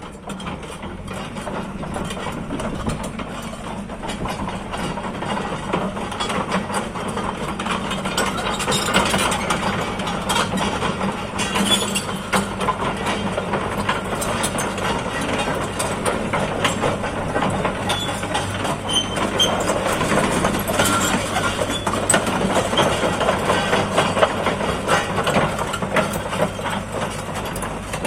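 JCB JS130 tracked excavator's diesel engine running steadily, with a dense rattle of metallic clicks and clanks over it.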